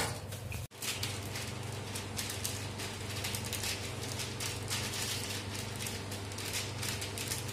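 Clear plastic sheet crinkling and rustling under a hand pressing and smoothing it flat on a countertop, in quick irregular crackles, starting about a second in.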